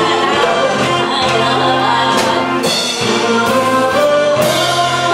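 A woman singing a Korean popular song into a microphone over amplified instrumental accompaniment, with a live drum kit and several cymbal crashes.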